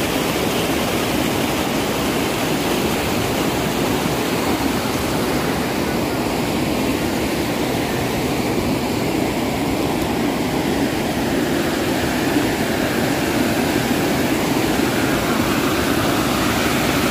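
Rushing water in a gorge, a loud, steady, unbroken rush.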